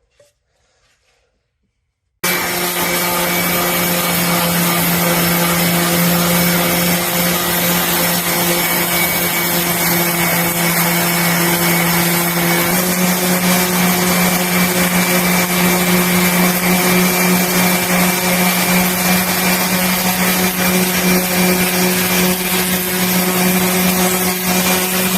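An electric power tool starts suddenly about two seconds in and runs steadily, cleaning up the steel of an antique axe head. Its pitch steps up slightly about halfway through.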